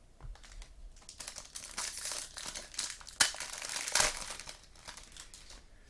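Plastic wrapper crinkling and tearing as a pack of trading cards is opened, with two sharp snaps about three and four seconds in.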